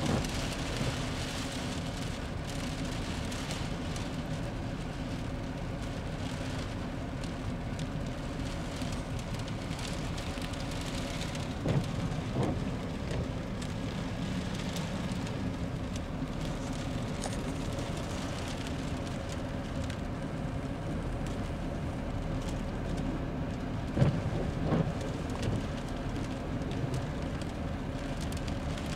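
Rain falling on a car's windshield and body, heard from inside the car over a steady low hum. Pairs of short thumps from the windshield wipers sweeping come at the start, about 12 seconds in and again about 24 seconds in.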